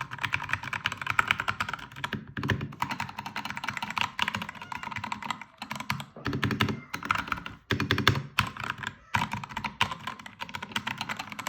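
Typing on a Keychron K2 V2 mechanical keyboard with brown tactile switches: a fast, continuous run of key clicks, broken by a few short pauses.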